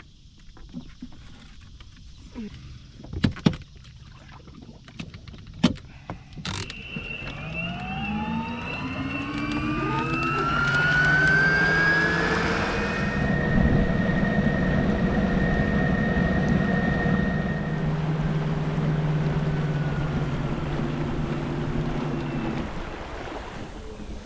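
Electric outboard motor on a dinghy. A few sharp knocks, then a whine that rises in pitch over about five seconds as the motor spins up, running steadily for about ten seconds before cutting off near the end.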